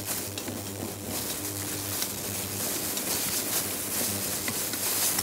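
Sliced onions sizzling in oil in a stainless steel pot as they are stirred with a wooden spoon, with a few light taps and scrapes of the spoon; the onions are loosening the browned meat residue from the bottom of the pan. A steady low hum runs underneath.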